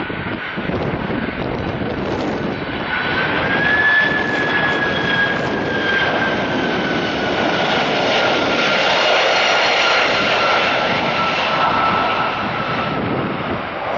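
Turbofan engines of a landing Boeing 767 going past close by. A dense jet roar swells about 4 seconds in, with a high whine that rises briefly and then slides slowly down in pitch as the plane passes, and the sound eases off near the end.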